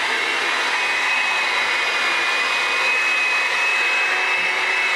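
Steady, unbroken whir of an electric household appliance's motor, with a thin high whine running through it.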